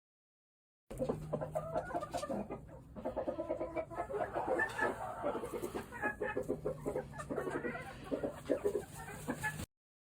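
Gamefowl chickens clucking, many short calls overlapping, with a steady low hum under parts of it. The sound starts about a second in and cuts off abruptly shortly before the end.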